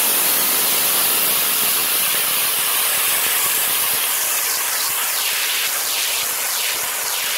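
Curry paste sizzling loudly as it hits hot oil in an aluminium pan, a steady hiss that surges several times in the second half as more paste is scraped in.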